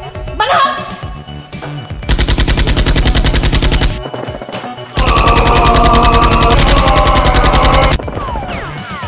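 Two long bursts of rapid automatic gunfire, the first about two seconds and the second about three seconds long, each a fast even string of shots.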